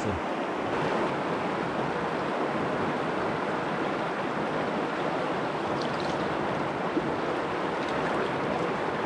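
Rushing water of a small river rapid: a steady, even rush that does not change.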